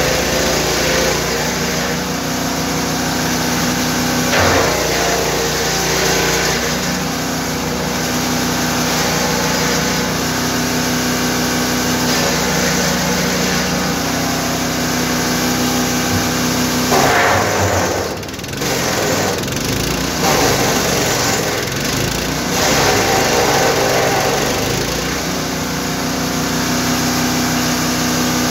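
The 9 hp engine of a GTM GTS 900 wood chipper running steadily at speed. A little past halfway its note wavers and the level dips briefly before it steadies again.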